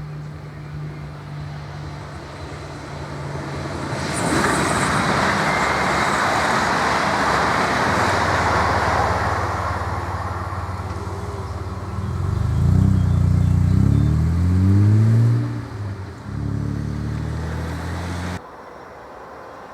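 Electric S-Bahn multiple unit running past and accelerating: a rush of wheel and running noise builds from about four seconds in, then its traction drive sounds a set of rising tones, cut off abruptly near the end.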